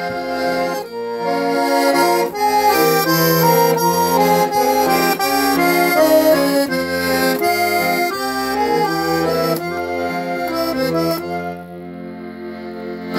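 Accordion playing the instrumental closing passage of a hymn, melody over bass notes, ending on a long held chord.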